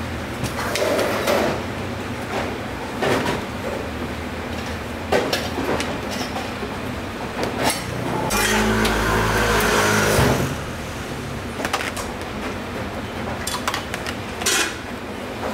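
Ceramic plates and metal utensils clinking and knocking on a stainless steel counter as steamed Taiwanese meatballs are dished up and sauced. About eight seconds in, a loud low rumbling hum lasts about two seconds.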